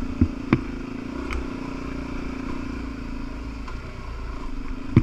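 Dirt bike engine running at a steady pace over a bumpy trail, easing off a little after about three seconds. A few sharp knocks cut across it, two in the first second and a loud one near the end.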